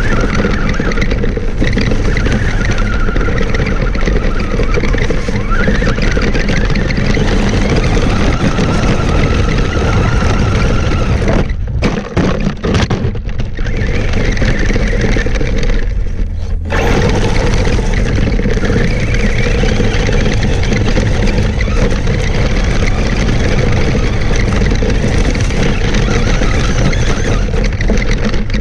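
Traxxas Stampede RC monster truck driving over loose gravel, heard from a camera on the truck: a steady crunching rattle of tyres and stones, with the electric motor's whine wavering in pitch underneath. The noise drops away briefly twice around the middle.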